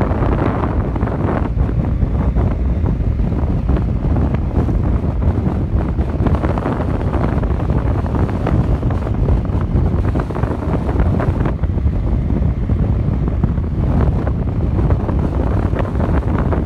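Steady wind buffeting on a motorcycle-mounted microphone while riding at road speed, a loud low rush that covers everything else.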